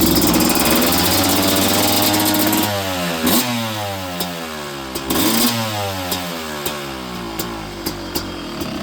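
Two-stroke dirt bike engine with an aftermarket expansion-chamber exhaust, revved hard for the first couple of seconds, then running on with its pitch sweeping up and down.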